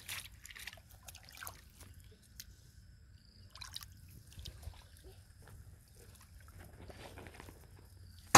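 Scattered light rustles and crunches of feet moving through grass and dry soil, with faint dripping water, and a sharp knock right at the end.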